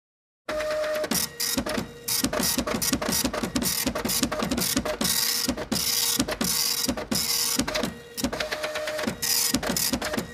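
Printer running: a fast, rhythmic train of mechanical clicks and rattles over a steady hum. It starts abruptly about half a second in and cuts off suddenly at the end.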